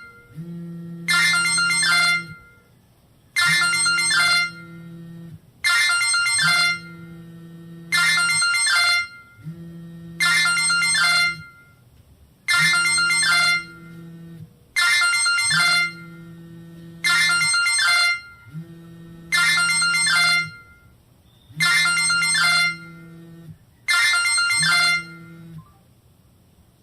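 Samsung GT-E2121L mobile phone playing a downloaded incoming-call ringtone through its speaker. A short electronic tone phrase of about a second repeats a little over every two seconds, eleven times, then stops near the end.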